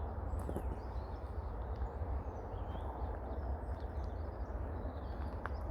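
Outdoor ambience: a steady low rumble with small birds chirping faintly.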